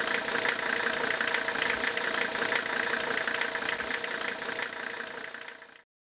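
Diesel engine idling with a rapid clatter, fading out near the end and then cutting off.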